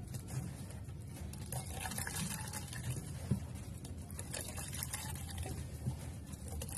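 Wet squelching and splashing as hands squeeze and knead shredded banana heart in a basin of water, with water trickling in.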